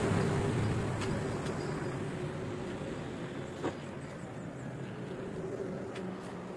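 Motor vehicle noise dying away steadily, with a steady hum under it and one sharp click a little past halfway.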